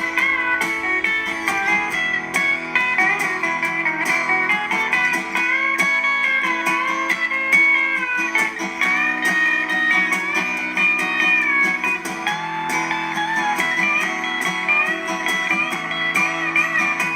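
Background music: a song led by guitar with sliding notes and a steady beat.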